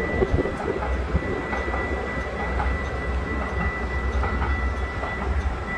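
Electric CTrain light-rail train running past: a steady low rumble of wheels on rail, with a steady high whine.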